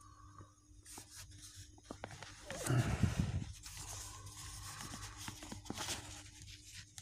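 Paper pages of a comic book rustling and rubbing as a hand handles and smooths them, in irregular bursts that are loudest about three seconds in.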